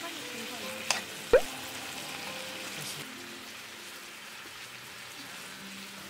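Deboned chicken neck meat and garlic cloves sizzling in a frying pan and being stirred with metal tongs. About a second in, the tongs click twice against the pan, the second click the loudest.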